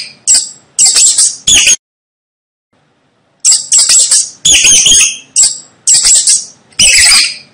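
Mouse squeaking: a series of short, loud, high-pitched squeaks, about eight in all, with a pause of about a second and a half partway through.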